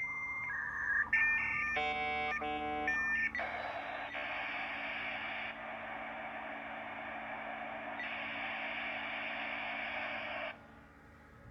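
Dial-up modem handshake between the Macintosh Performa's modem and a laptop's 56K modem over a PBX line. A steady answer tone leads into a brief run of warbling, chord-like tones about two seconds in. From about three seconds in there is a loud hiss of noisy training that cuts off about ten and a half seconds in as the connection is made.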